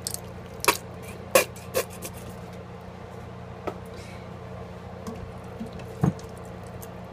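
Sharp taps against the pressure cooker's inner pot as tomato sauce goes into the chili, three close together in the first two seconds, then a silicone spoon knocking and stirring the thick mixture about six seconds in, over a faint steady hum.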